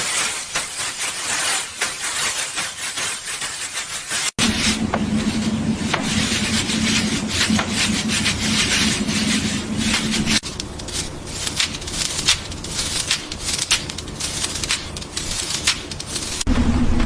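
Cloth rubbing and rustling as laundry is handled and folded, in short edited cuts, with a steady low hum under some of them.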